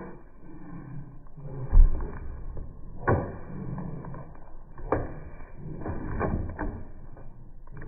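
A bulldog's paws on a hollow plastic pedestal as it steps up onto it: a low thump, then a few sharp knocks.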